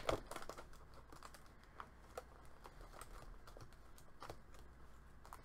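A few faint, scattered light taps and clicks: stickers and their packaging being handled and sorted through.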